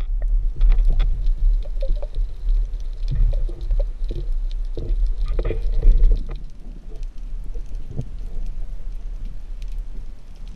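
Muffled underwater rumble with scattered clicks and knocks, busier in the first half and quieter after about six seconds.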